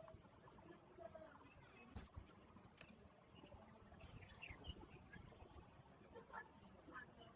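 Faint, steady high-pitched insect drone, with a single soft knock about two seconds in.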